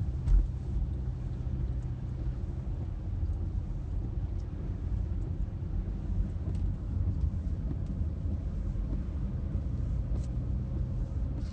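Steady low rumble of a car driving on a wet road, heard from inside the cabin, with a brief thump just after the start and a few faint ticks.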